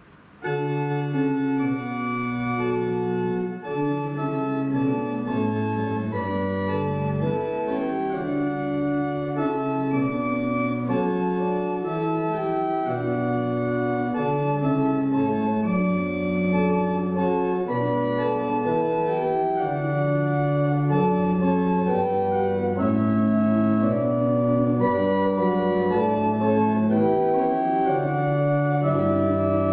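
Church organ playing a slow succession of sustained chords, starting about half a second in.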